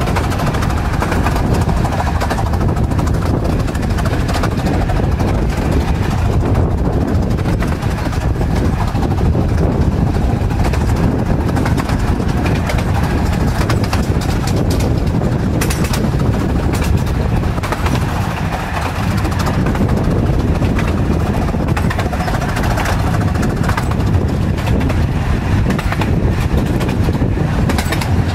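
A carriage of a small-gauge steam railway running along the track: a steady, loud running noise of wheels on rails, heaviest in the low end.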